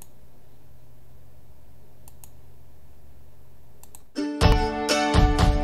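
A faint steady hum with a few light clicks, then instrumental music starts about four seconds in, a run of short, sharply struck or plucked notes.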